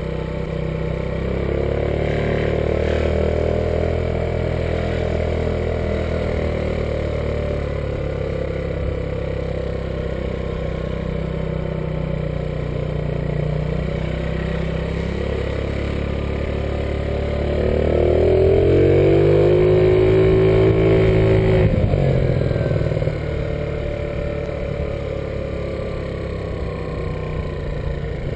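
Motor scooter's engine running while riding, its pitch wavering with the throttle; past the middle it revs up and runs louder for a few seconds, then eases back.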